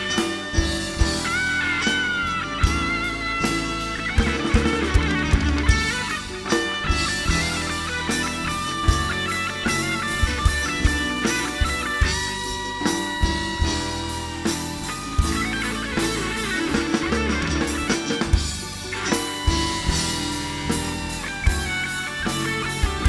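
Live rock band playing an instrumental passage: an electric guitar plays a lead line with bent, sustained notes over a drum kit.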